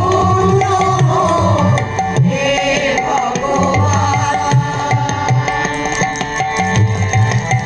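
Live group song: tabla strokes, the loudest part throughout, under a women's chorus singing with harmonium.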